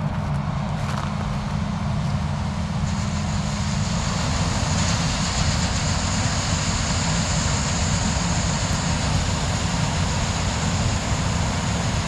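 Combine harvester at work: a steady diesel engine drone whose pitch steps up slightly about four seconds in, with a high steady whine joining about three seconds in.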